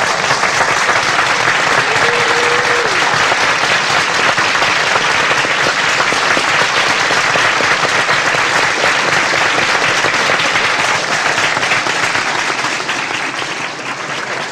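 Large audience applauding steadily at the close of a speech, recorded from among the crowd on a portable cassette recorder; the clapping starts to die away near the end.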